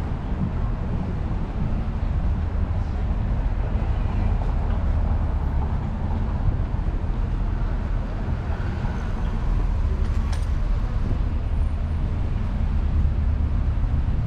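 Downtown street traffic: a steady low rumble of passing vehicles.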